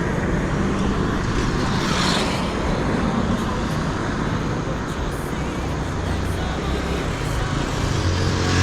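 Street traffic: cars and other motor vehicles running by on the road, with one passing close about two seconds in and another rising near the end.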